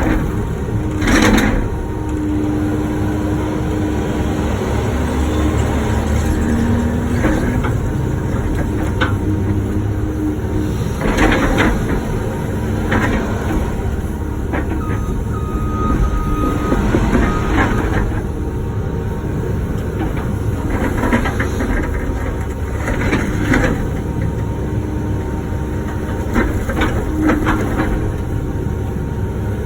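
Wacker Neuson ET 145 excavator's diesel engine running under load with a steady hydraulic whine, while the bucket scrapes and breaks out asphalt and concrete. A loud clatter comes about a second in, with several more scattered through.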